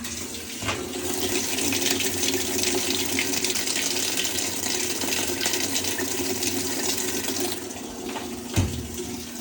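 Hot water pouring steadily into the tub of an Amana top-load washer through its hot water inlet valve, opened in the machine's diagnostic test mode; the valve is working. The flow quietens a little about seven and a half seconds in, and there is a single thump near the end.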